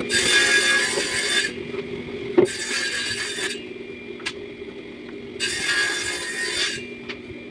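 Wood being worked by hand with long abrasive strokes, three in a row of about a second each with short pauses, over a steady low hum.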